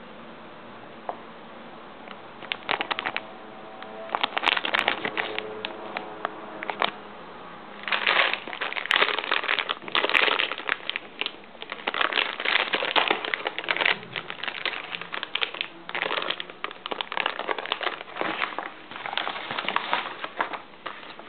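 A foil bag crinkling and rustling as it is handled and crumpled, in irregular bursts. It is sparse for the first couple of seconds and busiest from about eight seconds in.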